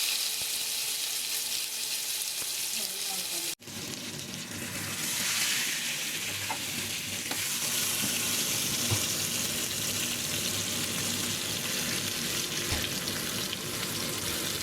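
Marinated pearl spot fish shallow-frying in coconut oil, a steady sizzle. It cuts out for an instant about three and a half seconds in, then swells again and carries on evenly.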